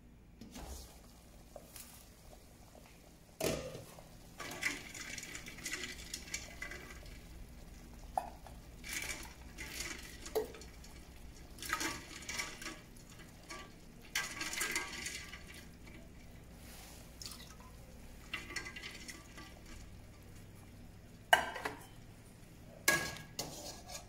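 Pot-and-water kitchen sounds: a sharp metal clank a few seconds in as the glass lid comes off a stainless steel pot of boiling water, then repeated swishes of water sloshing and bubbling as cauliflower florets are stirred. Near the end a metal skimmer knocks twice against the pot.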